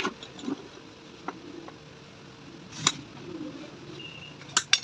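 Several sharp clicks and knocks at uneven intervals, the loudest about three seconds in and two close together near the end, over a faint steady hum.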